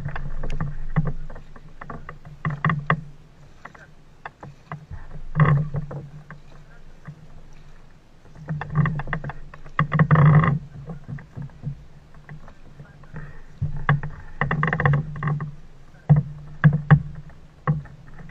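Small engine of a winged inflatable flying boat idling, with several louder spells.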